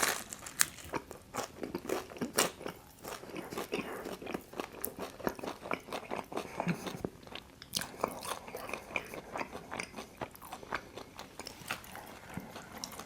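A person chewing Detroit-style pizza: a steady run of many small clicks and crunches.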